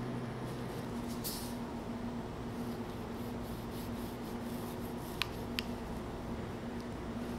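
Soft handling and knife-cutting sounds: a kitchen knife slicing through a cornstarch-dusted strawberry rice cake on a marble board, with two light clicks a little past halfway, over a low steady hum.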